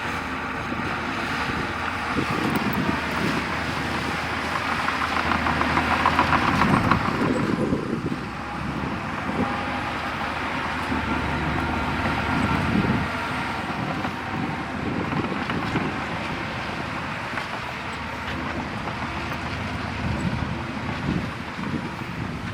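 Bulldozer at work: its diesel engine running steadily, swelling with a fast rattle about six to seven seconds in.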